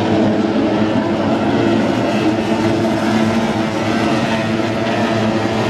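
Outboard engines of several SST-45 tunnel-hull race boats racing, a steady drone.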